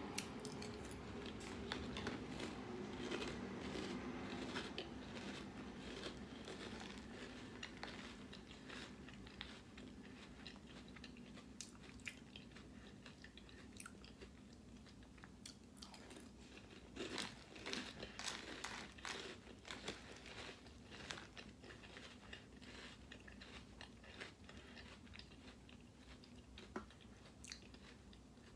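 A person chewing crunchy Cap'n Crunch cereal in milk, a string of irregular crunches and clicks, thickest about two-thirds of the way through.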